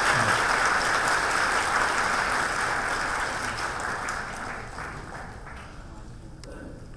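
Large audience applauding. It starts abruptly, stays loud for about three seconds, then dies away over the next few seconds.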